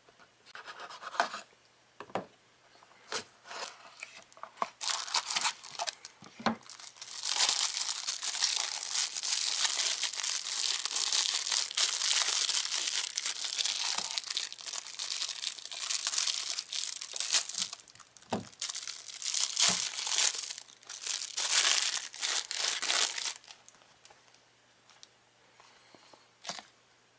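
A knife slitting packing tape on a cardboard box and the box being opened, with a few short knocks and scrapes. Then a long spell of a clear plastic bag crinkling and tearing as it is pulled open, dying away near the end.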